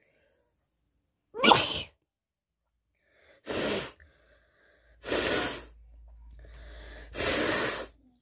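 A person sneezing four times, each a short burst of noise, the first the sharpest and loudest.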